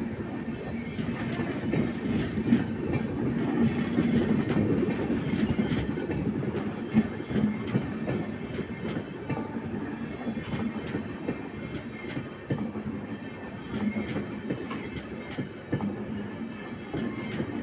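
Express passenger train coaches rolling past slowly: a steady rumble of wheels on the rails, broken by irregular clicks and clatter.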